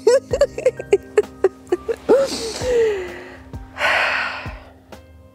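A woman laughing in short quick bursts, then a long breathy laugh that falls away about two seconds in and a loud breathy exhale near four seconds. Faint, steady background music runs underneath.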